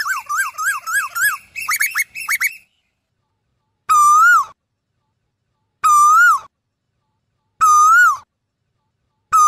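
Asian koel calling: a fast run of short, rising whistled notes, then after a pause single rising-and-falling whistled calls repeated about every two seconds.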